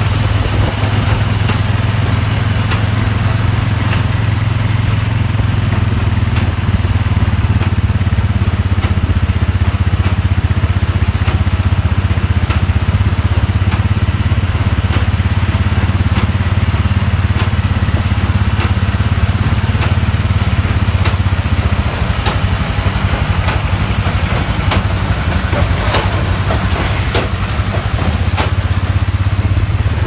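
Case IH Puma 150 tractor's six-cylinder diesel running steadily under load as it drives a Case IH LBX324XLR large square baler through wheat straw, with scattered light clicks and knocks from the baler's mechanism.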